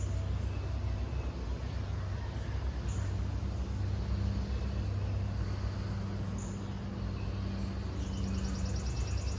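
Steady low motor-like hum under a faint outdoor hiss, with two faint short high chirps.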